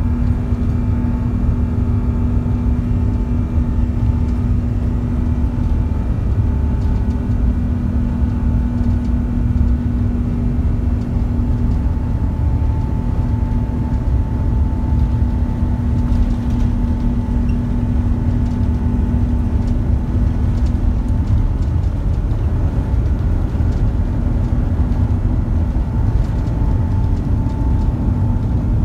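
Inside the cabin of an Airbus A350-941 rolling on the ground, its Rolls-Royce Trent XWB-84 engines at low thrust: a steady, loud low rumble with a constant hum on top that stops about two-thirds of the way through.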